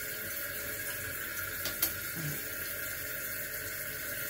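Kohler silent fill valve running, with a steady hiss of water filling the toilet tank. A single sharp click comes about two seconds in.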